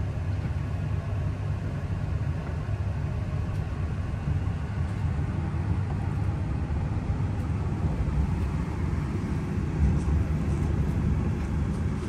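Cabin noise of a limited express electric train pulling out of the station: a steady low rumble that grows a little louder as it gathers speed, with a few faint clicks near the end.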